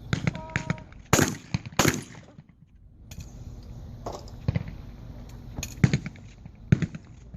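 Shotgun shots on a trap range: a loud pair in quick succession about a second in, then several more sharp cracks, some fainter, later on.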